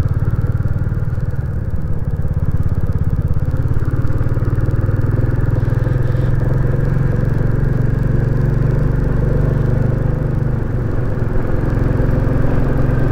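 Royal Enfield Classic 350's single-cylinder engine pulling steadily under load as the motorcycle climbs a lane, heard from the rider's seat.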